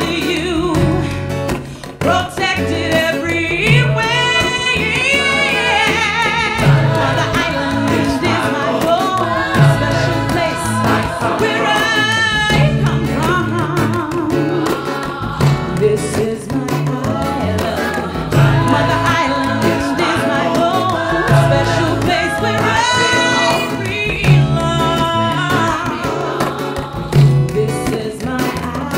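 Music: a song with singing over guitar accompaniment and a steady low beat.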